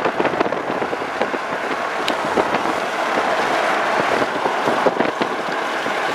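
A large flock of birds calling all at once: a dense, continuous chatter of many short overlapping calls.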